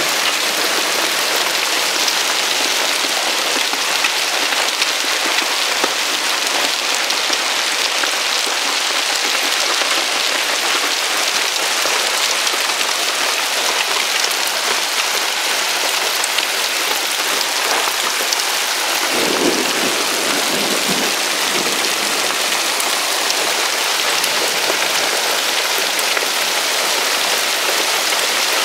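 Large hailstones pelting down in a hailstorm, a dense steady clatter of countless small ice impacts. A brief low rumble swells about two-thirds of the way in.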